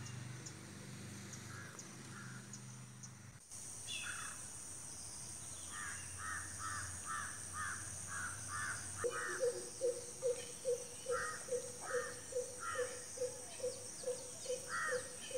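Birds calling in the open: crows cawing in short runs, and from about nine seconds in a low hooting call repeated about three times a second. A steady high-pitched hiss runs under them from about three seconds in.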